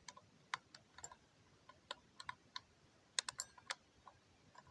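Slava mechanical alarm clock being wound by hand: faint, irregularly spaced clicks from the winding key's ratchet, with a quick run of clicks about three seconds in.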